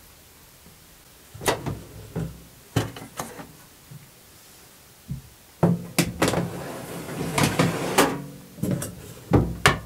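A metal baking tray being put into a Rawmid countertop steam oven: scattered knocks, then a stretch of clattering and scraping as the tray slides onto the wire rack, and two loud knocks near the end as the oven door is shut.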